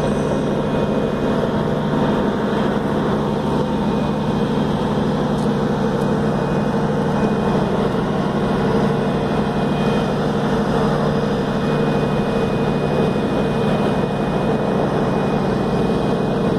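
Steady drone of a ship's engines and machinery heard on deck: an unchanging low hum with a few held tones over a broad rushing noise.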